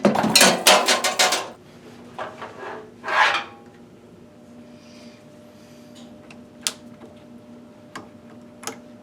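Rubbing and scraping of rubber and metal parts being worked loose on a washing machine's door gasket and drum: a long burst at the start and a shorter one a few seconds in. After that come a few light clicks over a faint steady hum.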